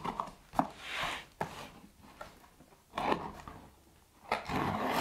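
Cardboard shipping box being opened by hand: packing tape picked at and pulled off, and the cardboard flaps scraping and rustling, in a few scratchy bursts with some sharp clicks.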